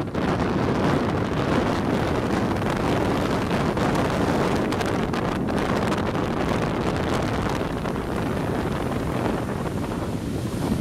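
Rough surf washing and churning in the shallows, a steady rushing noise, with wind buffeting the microphone.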